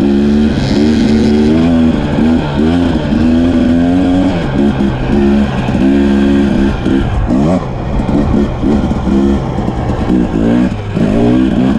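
Dirt bike engine heard from the rider's own bike, revving up and dropping back again and again as it accelerates, shifts and eases off, with wind rushing over the microphone.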